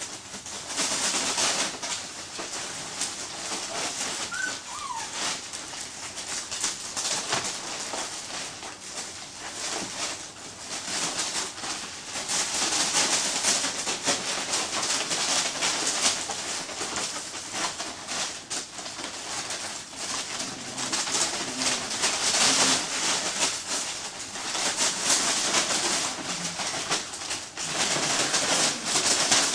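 Greater Swiss Mountain Dog puppies scampering and tussling on a plastic tarp and newspaper: continual crinkling and rustling of plastic and paper, with a brief falling squeak about four seconds in.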